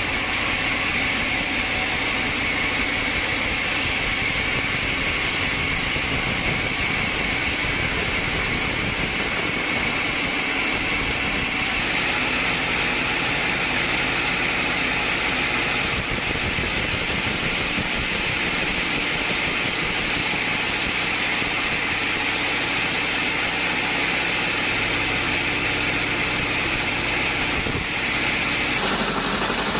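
Sawmill machinery running steadily: a continuous mechanical drone with a steady high whine, its character shifting slightly about twelve seconds in and again near the end.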